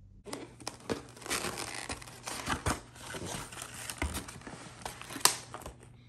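Packaging being handled as a cardboard box is opened: irregular crinkling and rustling with scattered clicks, and a sharp click about five seconds in.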